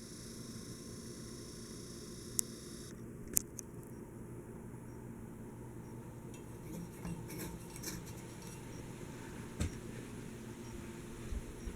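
Hunter Passport ceiling fan running with a steady low motor hum, with a few sharp clinks heard over it.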